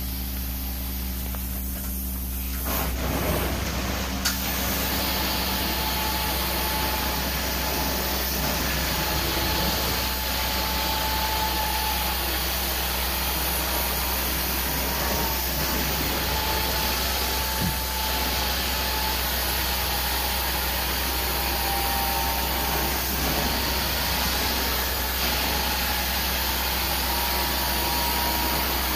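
Carpet hot-water extraction (steam cleaning) tool running over carpet: a steady rushing hiss of vacuum suction through the tool and hose, with a faint wavering whine, starting about three seconds in.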